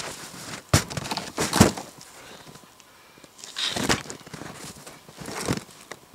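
A wolf carcass is dropped into a plastic pull sled, with two loud knocks about a second in. Further knocks and rustling follow as it is shifted into place in the sled.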